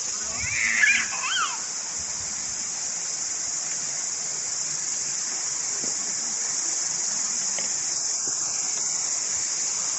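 Steady rushing hiss of a mountain stream, with a short high call about a second in.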